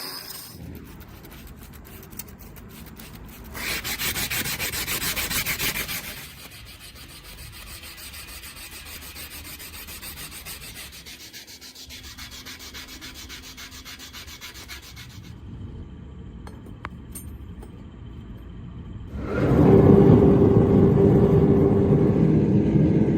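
Abrasive rubbing on steel, heard in several separate stretches, with a louder scraping stretch from about four to six seconds in. In the last four seconds a much louder, lower, steady noise takes over.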